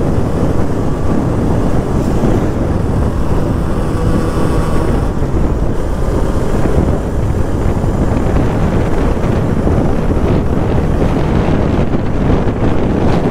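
Steady wind buffeting the microphone of a Bajaj Pulsar RS200 motorcycle riding at highway speed, with the bike's running noise underneath.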